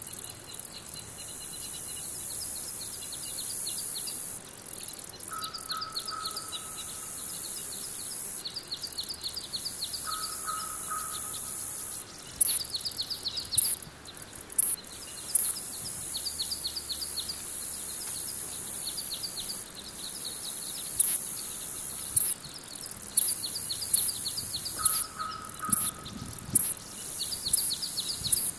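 Wild birds singing: short rapid trilled phrases repeated throughout, and a lower falling call heard three times, over a steady high hiss. In the second half, a run of sharp crackling snaps is louder than the birds.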